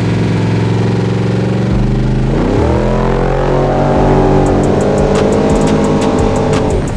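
Subaru WRX STI rally car's engine held at high revs, then climbing sharply about two seconds in as the car accelerates, with a scatter of sharp ticks near the end.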